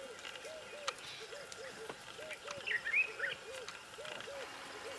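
A bird calling in the background: low, arched hooting notes in pairs, repeating about once a second. A short burst of higher chirps comes about three seconds in and is the loudest sound.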